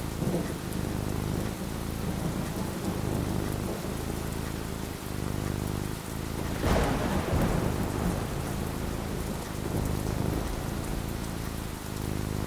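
Thunderstorm: steady rain falling with a low rumble of thunder, and a louder thunderclap about two-thirds of the way through that fades out over a second or two.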